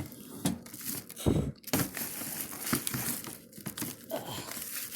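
Rubbish in a trash can being rummaged and pushed aside: plastic and paper rustling and crinkling, with a dull thump about a second in.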